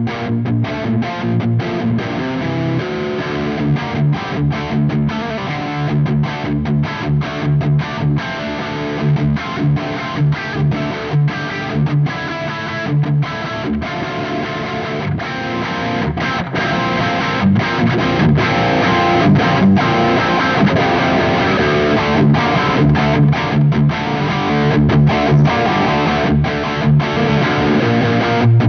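Distorted electric guitar riff played through a Soldano SLO100 clone tube amplifier, with chugging low notes and frequent sharp stops. It gets louder about halfway through.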